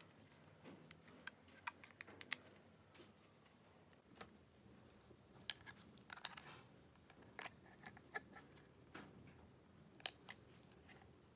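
Small clicks, taps and light scrapes of a smartphone's metal mid-frame and its small parts being handled and fitted by gloved fingers. They come irregularly, with a brief scrape about six seconds in and the sharpest click near the end.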